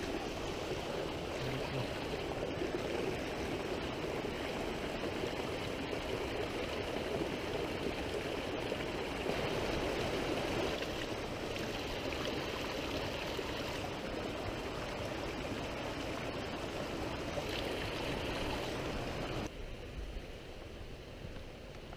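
A creek running steadily, a continuous rush of water. The sound drops off suddenly near the end, leaving a fainter background.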